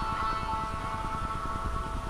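Background music: sustained guitar-like tones over a steady low beat.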